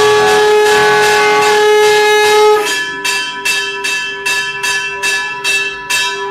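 Temple bell rung steadily during an arati, about two strikes a second, with its ringing tone carrying through. A long, strong blown note is held over the bell and stops about two and a half seconds in.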